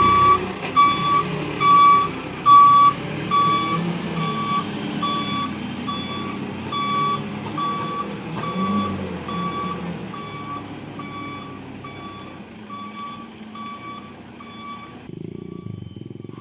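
A truck's reversing alarm beeping steadily, about two and a half beeps a second, over its diesel engine running as it backs down after failing to make the slippery climb. The beeping stops about fifteen seconds in.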